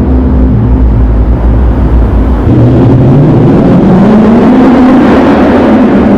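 Dodge Charger Scat Pack's 392 HEMI V8 running loudly through a muffler-deleted exhaust, its pitch rising as it accelerates from about halfway through, then holding.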